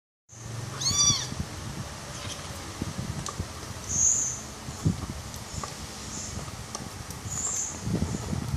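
A tiny tabby kitten gives one short, high mew about a second in that rises and falls in pitch. Then come a few brief high squeaks and soft rustles while it is held and bottle-fed.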